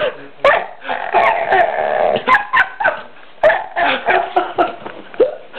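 A dog whining and yelping in a string of short cries that slide up and down in pitch, with one longer wavering whine about a second in.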